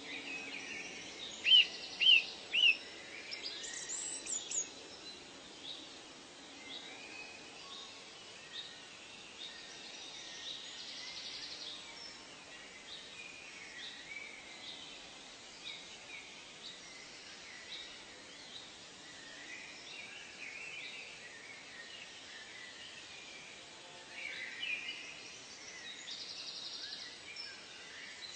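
Birds calling and chirping over a faint steady hiss, with three loud sharp chirps about two seconds in and another burst of calls near the end.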